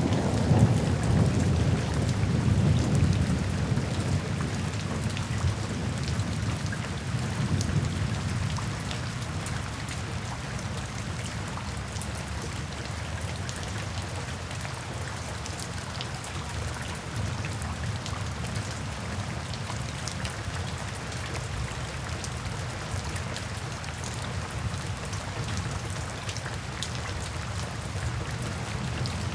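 Steady rain with many individual drops ticking, and a low rumble of thunder in the first few seconds that fades away.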